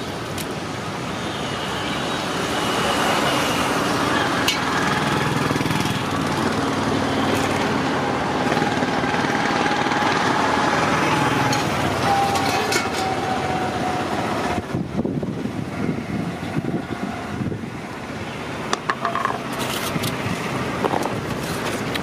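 Roadside street noise: traffic passing, with voices in the background and occasional clinks and knocks.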